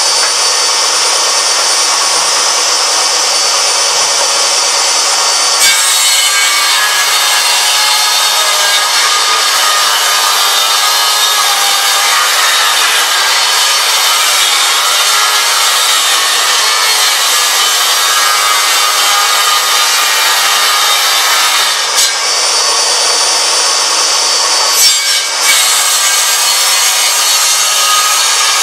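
Table saw ripping a solid oak board along the fence. The blade spins free with a steady high whine, then a long cut starts about six seconds in and runs until about twenty-two seconds. After a few seconds of free-running whine, a second rip cut follows near the end.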